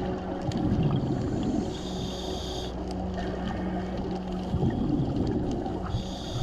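Scuba breathing through a regulator underwater: two surges of exhaled bubbles, about a second in and again near five seconds, with short high hisses of inhaling between them, over a steady drone of a boat engine carried through the water.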